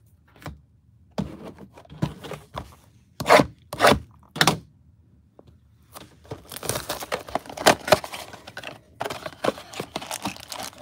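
Cardboard trading-card blaster box being handled, with a few sharp knocks, then from about six seconds in the crackling and tearing of the box being torn open at its end flap.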